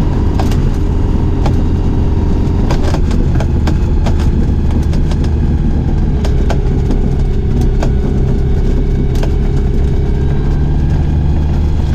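Skyranger microlight's Rotax 912 four-cylinder engine and propeller running steadily at low power while it taxis on grass, heard from inside the open cockpit. Irregular short knocks and rattles are scattered through it.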